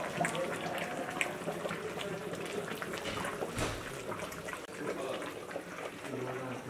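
Indistinct background voices over a steady hiss, with a few light clinks and taps.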